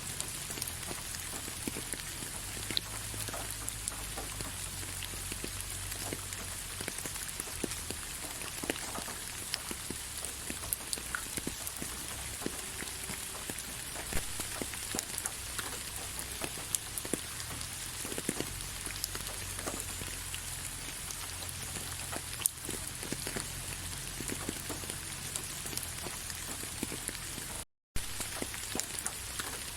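Steady rain falling, with many scattered individual drops ticking. The sound drops out completely for a split second near the end.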